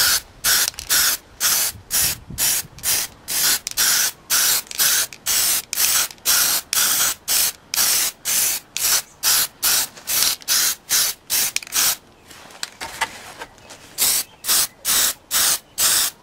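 Aerosol can of spray putty hissing in short, rapid bursts, about three a second, as filler is sprayed onto a 3D-printed part; the bursts pause briefly about twelve seconds in, then start again.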